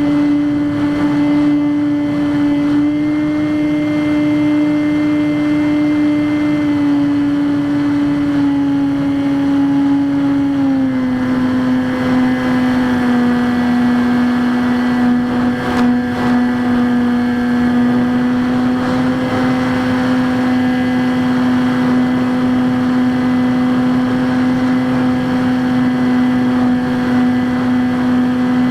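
Electric motor and pusher propeller of a Skywalker X5 flying wing running steadily in flight, a steady tone that drops slightly in pitch about eleven seconds in.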